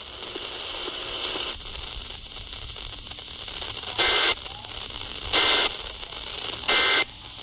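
Weather radio receiver hissing with static, broken by three short bursts of SAME digital data tones about 1.3 seconds apart. Bursts this short are the length of the EAS end-of-message code that closes an alert.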